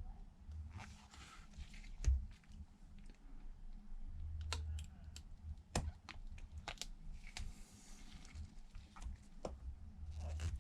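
Scattered small clicks and taps of precision tools, a screwdriver and tweezers, working on the open iPad's internals, with brief rustling and a steady low hum.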